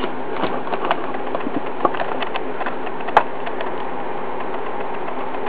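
Steady background hum and hiss with a scatter of faint small clicks and taps, and one sharper click about three seconds in.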